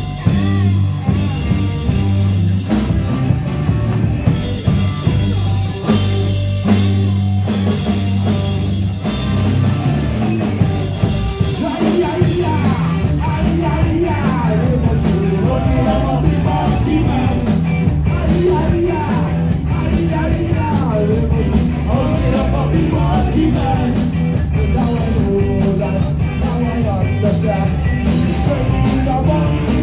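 Live rock band with drum kit, bass and electric guitars playing an upbeat song straight from a count-in. Singing comes in after about twelve seconds.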